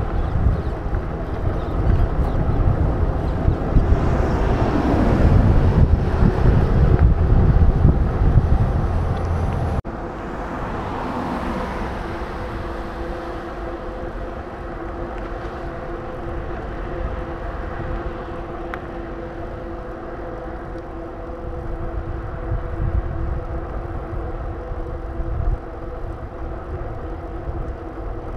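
Wind buffeting the microphone over road noise. About ten seconds in it cuts to a quieter, steady traffic hum with several steady engine tones.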